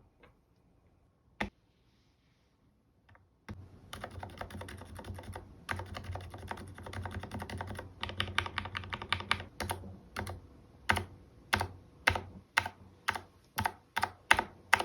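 Mechanical keyboard with stock, unlubricated Gateron Silent Black linear switches being typed on: one lone keystroke early, then fast continuous typing from about three and a half seconds in, slowing to single keypresses about twice a second near the end.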